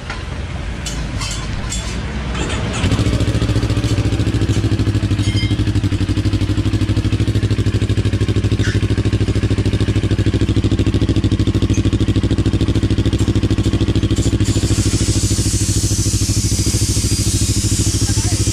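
CFMoto NK400 parallel-twin engine running through an aftermarket Akrapovič-branded slip-on muffler. Its sound jumps up abruptly about three seconds in, then holds steady and even. A hiss joins near the end.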